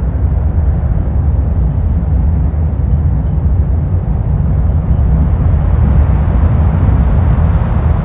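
Steady, loud, low rumble of a vehicle driving along a snow-covered road: engine and tyre noise heard from the moving vehicle.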